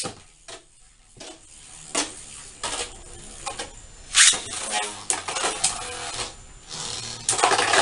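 A few separate plastic clicks, then about four seconds in Beyblade Burst spinning tops, Judgement Joker among them, are launched into a plastic stadium and clatter against each other and the stadium walls in a fast run of clacks and scrapes.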